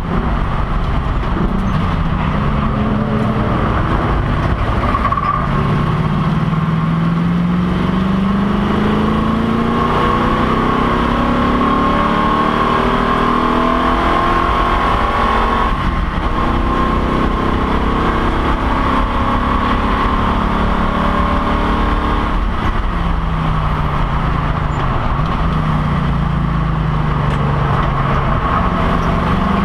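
Race car engine heard from inside the cockpit under racing load, its pitch climbing with acceleration and falling in steps as it slows and shifts down. A steady high whine and road and wind noise run underneath.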